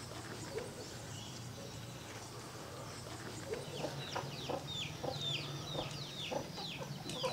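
Chickens clucking. From about three and a half seconds in comes a run of quick, high, falling peeps, over a low steady hum.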